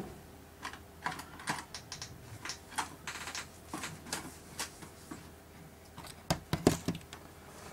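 Scattered light clicks and taps of a plastic tablet being handled and shifted on a workbench, with a couple of louder knocks about six and a half seconds in.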